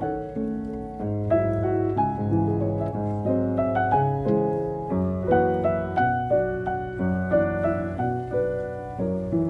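Background piano music: a gentle melody over chords, notes struck a few times a second.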